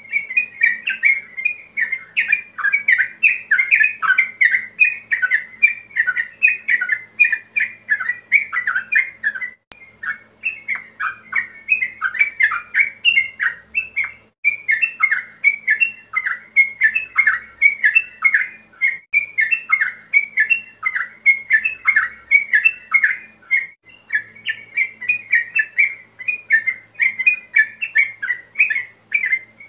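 Male yellow-vented bulbul (trucukan) singing in a fast, unbroken run of short bubbly chirps, several notes a second, with brief breaks about ten and fourteen seconds in. This is the male's 'ropel' song calling out to rivals.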